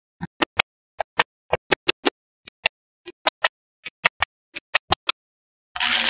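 Small magnetic balls clicking as they snap onto each other and into the panel, one sharp click after another at about four or five a second, often in quick pairs. Near the end, a short loud rustle as a clear plastic sheet is handled.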